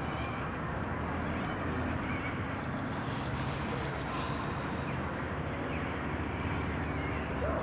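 Steady outdoor background rumble and hiss, with a few faint short calls.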